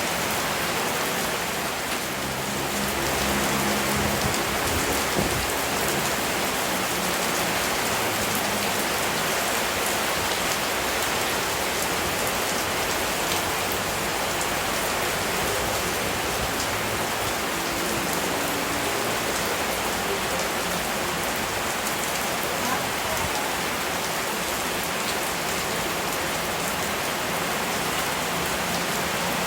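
Steady rain falling, an even hiss of drops on surfaces with no let-up. Faint, short low tones sit underneath, mostly in the first few seconds and again a little past the middle.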